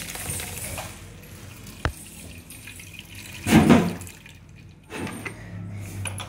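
Thick ground paste pouring from a mixer-grinder jar into a plastic mesh strainer over a bowl, with liquid splashing and dripping. A sharp tap comes about two seconds in, and a louder thump follows around three and a half seconds in as the jar and strainer are handled.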